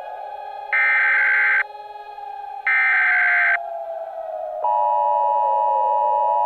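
Two bursts of Emergency Alert System SAME header data, each about a second long and about a second apart. About four and a half seconds in, the steady two-tone EAS attention signal starts, announcing an incoming emergency alert. A quieter wavering tone slides slowly up and down underneath.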